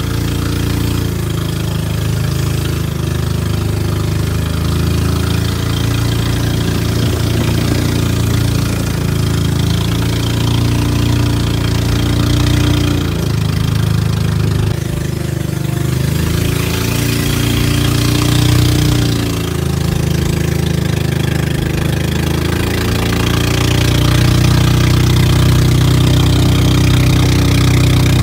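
Small boat's engine running steadily under way, its pitch wavering slightly now and then.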